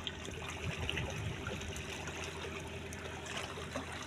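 Sea water lapping and trickling against shoreline rocks, a steady wash.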